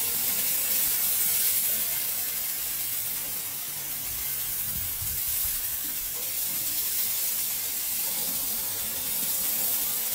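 Thick steak sizzling on a hot barbecue grill: a steady hiss of fat and juices searing on the grate.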